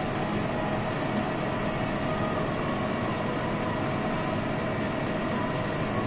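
John Deere tractor engine running steadily, a constant drone with a thin steady whine over it.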